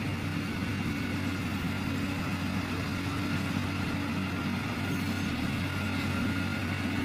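Heavy construction-machine engine running steadily at an even pitch, with no revving.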